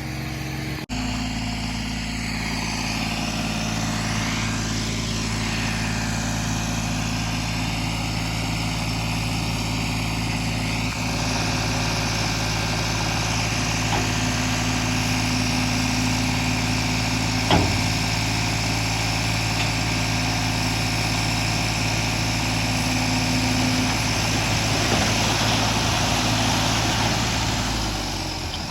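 Heavy diesel engine of a construction vehicle running steadily at an even speed, with one sharp knock about two-thirds of the way through.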